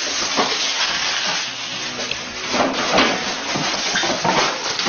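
Loud, steady hiss of recording noise, with a few faint, indistinct short sounds in it.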